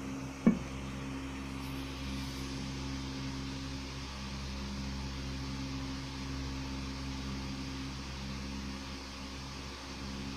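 Steady low hum with a faint hiss, and a single sharp click about half a second in.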